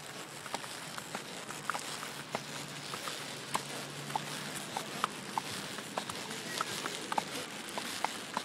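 Horse and half-Arab colt walking side by side, the colt led from the saddle horse: irregular hoof falls over a steady hiss.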